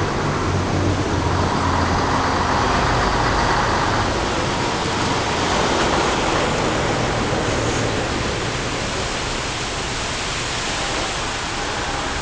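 Bus engine passing with a steady low hum that fades over the first few seconds, leaving an even rushing noise.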